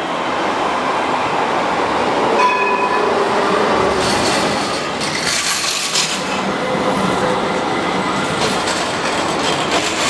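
A street tram on Istanbul's T1 line passes close by: the steady rolling noise of steel wheels on rail, with brief high squealing tones about two and a half seconds in.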